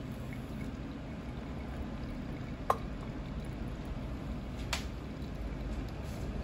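Thin stream of hot water from a drip kettle pouring onto coffee grounds in a pour-over dripper, then stopping, over a low steady background hum. Two short clicks, the first and louder about two and a half seconds in, the second about two seconds later.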